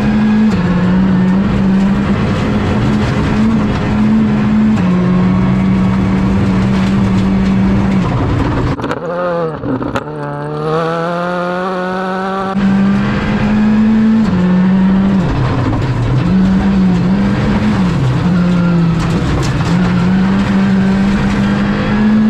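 Skoda Fabia R5 rally car's turbocharged 1.6-litre four-cylinder engine driven hard on a gravel stage, held high in the revs and stepping up and down with gear changes and throttle. About nine seconds in, the revs drop sharply and climb back up.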